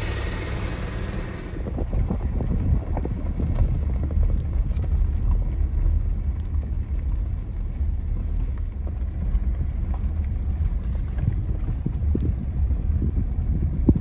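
Vehicle driving slowly over rough ground, heard from inside the cab: a steady low engine and road rumble with scattered knocks and rattles, and a brief burst of hiss at the start.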